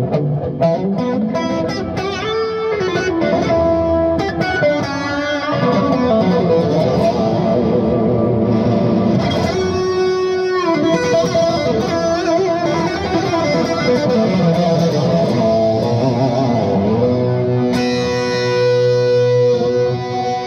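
Electric guitar played through a Bludotone Joyeuse tube amplifier head, picking lead lines with several bent notes and ringing sustained notes, recorded on a phone microphone.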